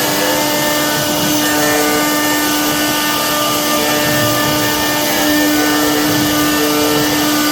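CNC wood carving router running steadily, its spindle giving a constant whine over a loud hiss of cutting, with brief small changes in tone as the bit works the wood.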